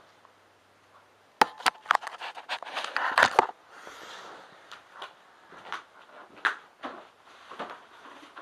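Camera handling noise: a quick run of sharp clicks and knocks as the camera is moved and set down, then scattered soft rustling and knocks.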